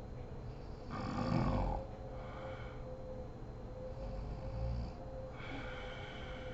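A sleeping woman snoring: a loud snore about a second in, then breaths and a second, weaker snore about three seconds later, followed by a breathy exhale. A faint steady hum sits underneath.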